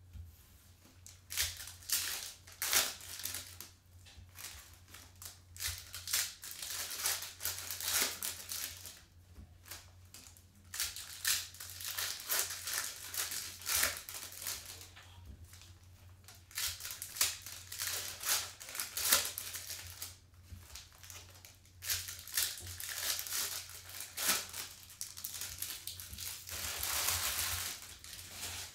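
Foil trading-card pack wrappers crinkling and tearing as packs are ripped open and the cards handled, in irregular crackles over a steady low hum.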